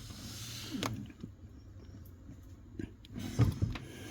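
Brake pedal worked with the engine off against a newly fitted Bendix brake booster: a brief air hiss at the start, then a dull clunk about three and a half seconds in, a clunk whose cause the owner cannot find.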